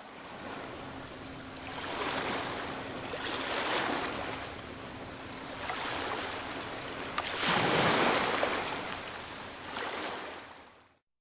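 Ocean surf washing in and drawing back in slow swells, with a faint steady low hum under it that stops about two-thirds through; it fades in at the start and fades out near the end.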